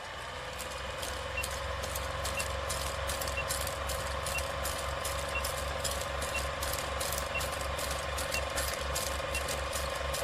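Film-projector sound over a countdown leader: a steady mechanical whir with a fluttering low hum, scattered crackles and pops, and a short high beep about once a second.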